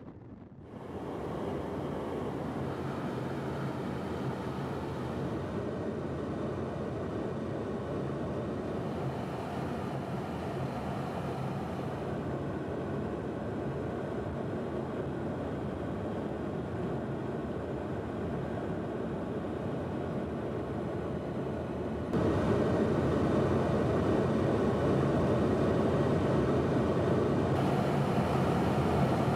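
Steady drone of aircraft engines in flight, with a constant low hum. It gets clearly louder about three quarters of the way through.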